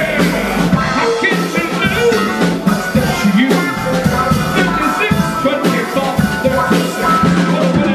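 A rock band playing, with a drum kit keeping a steady beat under the instruments.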